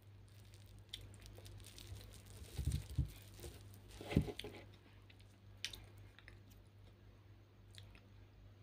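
Gnawed boiled-corn cobs handled and set down on a table: a few soft knocks about three and four seconds in, the last the loudest, over a steady low hum.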